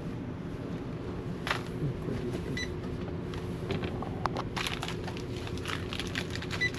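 Checkout-counter sounds: a steady low hum with clicks and light knocks of items being handled, thickest in the second half, and a few short high electronic beeps.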